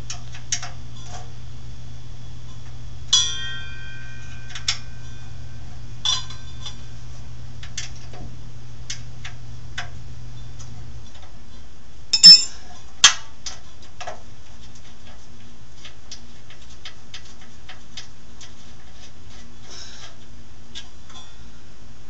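Steel wrench clicking and clinking against the steel base of an old Craftsman radial saw as its bolts are worked loose: scattered light ticks, one ringing clink about three seconds in, and two sharper clanks a little over halfway through.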